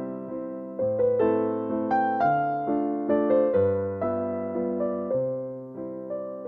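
Background music: a slow, gentle piano piece, struck notes and chords decaying one after another over a low bass note that changes every second or so.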